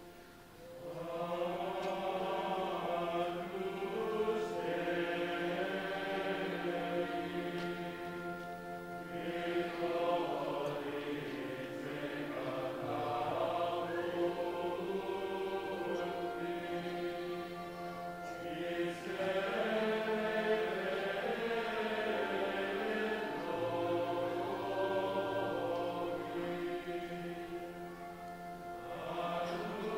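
Choir singing together in several parts, in long held phrases with short dips between them about every ten seconds.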